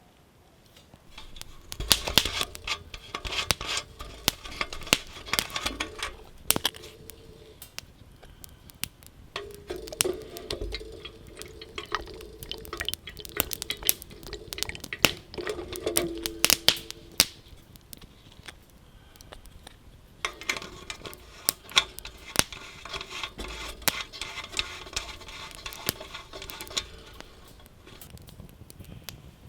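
Campfire cooking sounds: a utensil clinking and scraping against cookware in three bursts of several seconds each, with many sharp clicks throughout.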